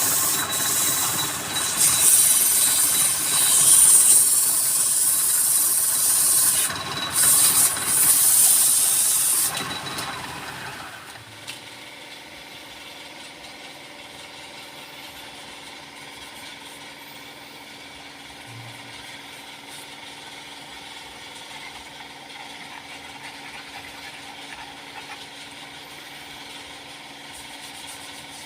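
Wood lathe with a turning tool cutting into spinning wood, a loud hissing scrape for about ten seconds. The tool then comes off and the lathe runs on with a quieter steady hum.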